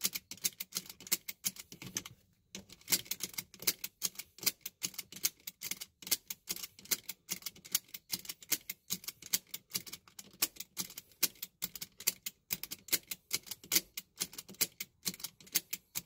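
Subaru seat belt latch plate being snapped into the buckle and released over and over, several sharp clicks a second with a brief pause about two seconds in. This is the rapid repeated buckling that disables the car's seat belt chime.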